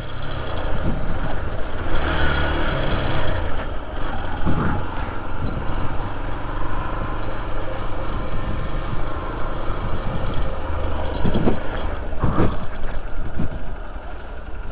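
Hero XPulse 200 single-cylinder motorcycle riding slowly over a rough off-road stretch. The engine runs under steady wind and road noise, with several knocks from bumps in the second half.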